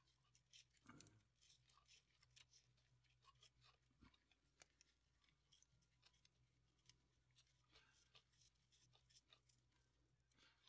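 Near silence over a faint steady low hum, with scattered faint small metal clicks and ticks as a small bolt is run in by hand and a socket is fitted onto it.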